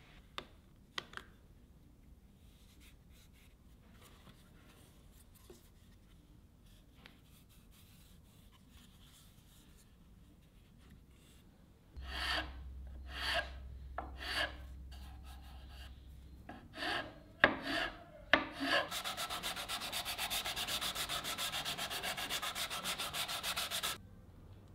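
Flat metal file worked across a wooden part of an antique brace: a handful of single strokes, then about five seconds of fast, even back-and-forth strokes that stop abruptly. Before the filing, about twelve seconds of faint handling with a few small clicks.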